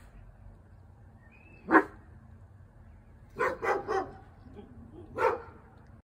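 A dog barking in short, sharp barks: one about two seconds in, a quick run of three around three and a half seconds, and one more near the end.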